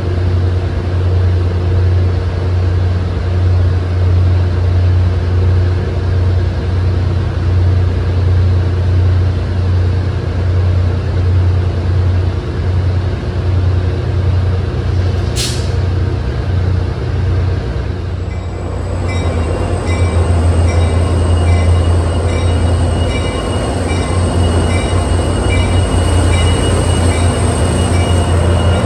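Steady low rumble of trains at a rail terminal. About two-thirds of the way in it gives way to an NJ Transit diesel locomotive and its coaches moving past close by, with a steady high whine and a high ping repeating about one and a half times a second.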